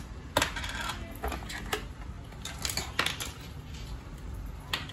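Plastic toy dishes and cutlery clattering against each other and the plastic toy-kitchen box as they are handled and taken out: irregular light clicks and knocks.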